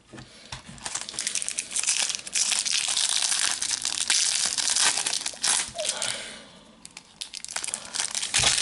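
A foil trading-card packet being torn open and its wrapper crinkled in the hands. Loud crackling runs from about a second in until about six seconds, then dies to a softer rustle before another short burst near the end.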